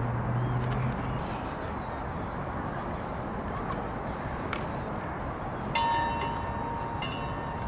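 Steady outdoor background noise, with a low hum that fades out in the first second. About six seconds in a bell rings, a clear ringing tone that sounds again about a second later.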